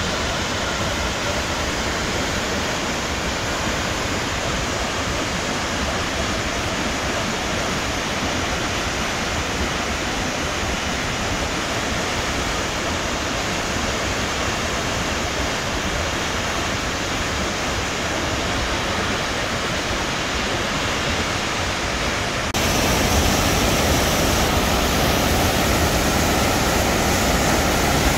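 Wallace Falls, a tall waterfall, making a steady rush of falling water. About three-quarters of the way through the sound abruptly gets louder and brighter.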